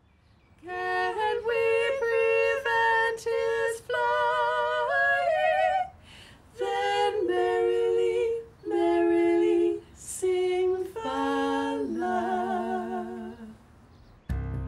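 Two women singing a duet in harmony, unaccompanied, a song from a singing book well over 100 years old. It comes in short phrases with brief breaks, some notes wavering in a light vibrato, and stops about a second before the end.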